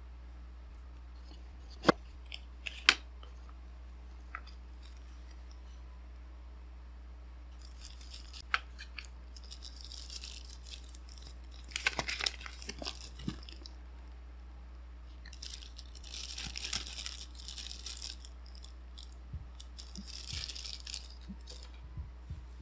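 Unboxing handling sounds: two sharp clicks about two and three seconds in, then several stretches of crinkling and rustling of a small plastic bag and paper packaging.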